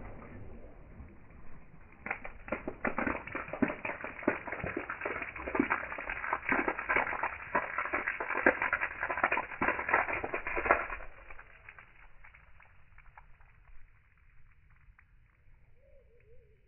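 Water thrown up by an underwater water-rocket launch raining back down as spray, splashing and pattering irregularly on the tank and the ground around it; it thins out and stops about two-thirds of the way through.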